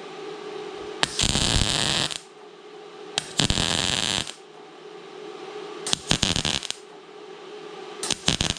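Everlast Lightning MTS 275 MIG welder laying four short tack welds, each a crackling arc of about a second with short pauses between, building up weld on a broken bolt so it can be gripped and pulled out.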